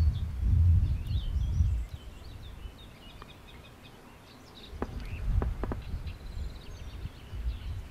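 Small birds chirping over a low rumbling noise that is loud for the first two seconds, drops away, and returns from about halfway, with a few sharp clicks in the middle.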